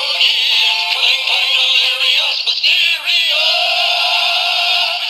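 Hasbro Yo-kai Watch toy playing a medal's song through its small speaker: synthesized music with electronic-sounding singing, thin and with no bass.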